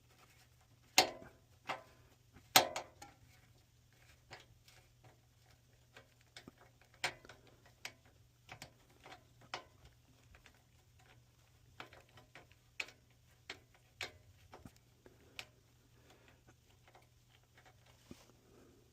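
Irregular clicks and knocks of hand and tool work on a furnace blower motor's capacitor mounting, with two louder knocks in the first three seconds and then scattered lighter ticks.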